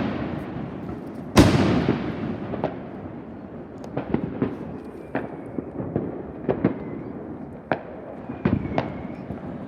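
Fireworks going off: one loud boom about a second and a half in that fades slowly, followed by scattered sharp cracks and pops.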